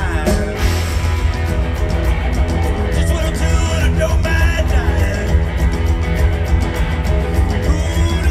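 Live blues-rock band playing loud through a concert PA: electric guitar over heavy bass and a steady drum beat, heard from the audience.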